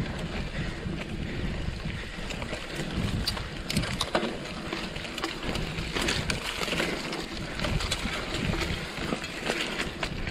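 Mountain bike rolling along a sandy dirt singletrack: steady tyre and wind noise on the microphone, with scattered rattles and knocks from the bike over bumps.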